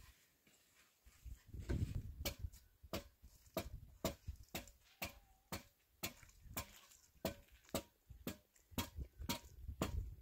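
Sharp taps repeating about three times a second, starting about two seconds in, with low thuds under them.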